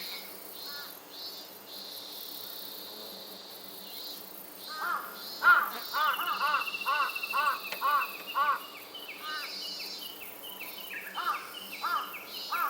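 Robust cicada (minmin-zemi) singing: a run of evenly repeated rising-and-falling notes, loudest in the middle, over a steady pulsing drone.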